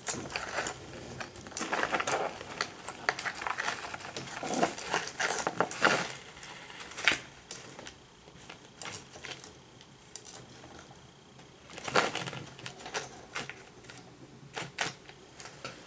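Irregular rustling, clicks and clatters of plastic bags and small objects being disturbed as a Nile monitor lizard scrambles through the clutter of its enclosure floor and metal feeding tongs are handled. The sounds are densest in the first seven seconds and come again in a louder cluster about twelve seconds in.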